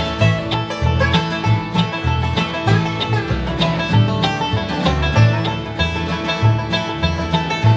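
Acoustic bluegrass band playing an instrumental passage: five-string banjo picking the lead over upright bass notes on a steady beat and acoustic guitar rhythm.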